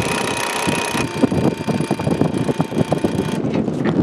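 Electric sailboat winch running under load as it hauls in a line, a steady motor whine that cuts off suddenly about three and a half seconds in.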